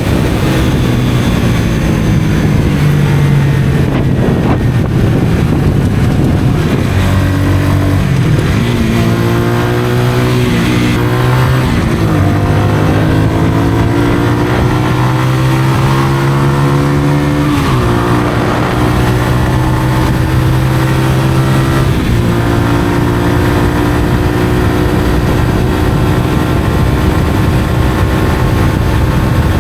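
Honda CBR125R's single-cylinder four-stroke engine through a Mivv aftermarket exhaust, accelerating while riding. Engine pitch climbs, drops sharply about a third of the way in, climbs again, falls sharply past the middle, then holds steady while cruising.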